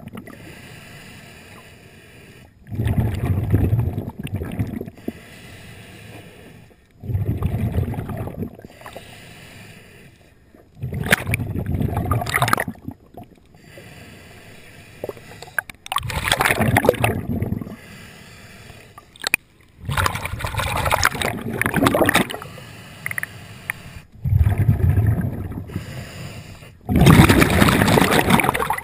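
Diver breathing underwater through a scuba regulator, with a burst of exhaled bubbles about every four seconds and quieter water noise between them.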